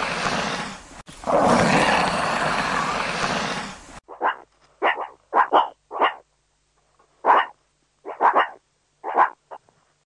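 Nile monitor lizard hissing in two long, rough breaths, the first breaking off about a second in. Then a meerkat gives about a dozen short, sharp barking calls in irregular groups.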